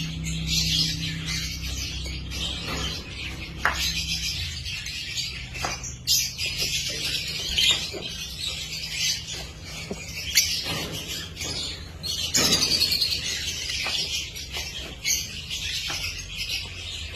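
A pair of lutino lovebirds chirping and chattering continuously with sharp high-pitched calls, over a steady low hum.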